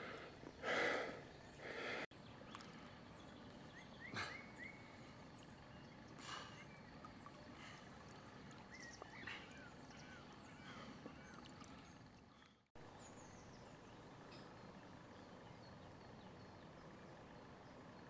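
Faint lakeside ambience: a low steady outdoor hiss with a few short water sloshes and small bird chirps now and then.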